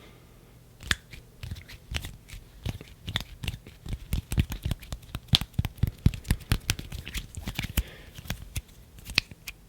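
ASMR hand sounds close to the microphone: quick, irregular crisp clicks and snaps of hands and fingers, sparse at first and coming thick and loud from about three seconds in.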